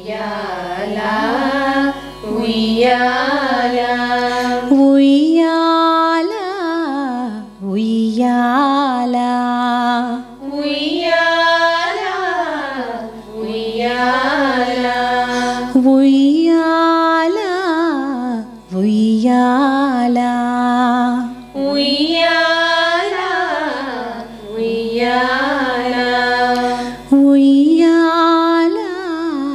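A woman singing the slow, swaying close of a Carnatic lullaby in Raga Madhyamavati, in long gliding phrases of about three seconds each that rise and fall in pitch, over a steady drone.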